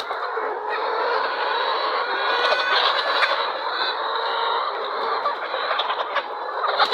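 A large flock of poultry calling all at once, a dense continuous din of overlapping clucks and squawks.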